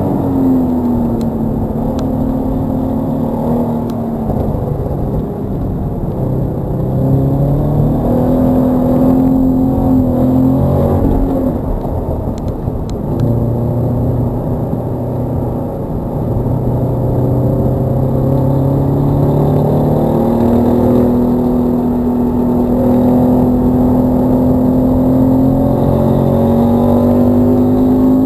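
Toyota GT86's 2.0-litre FA20 flat-four engine heard from inside the cabin under hard track driving, its pitch falling and rising with the revs between about 3,600 and 6,300 rpm as the car brakes, corners and accelerates through second and third gear. The revs climb hard near the end.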